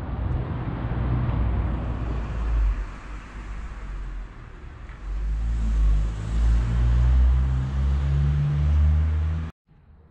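A motor vehicle's engine running close by: a low rumble that grows louder and steadier about halfway through. It cuts off suddenly near the end.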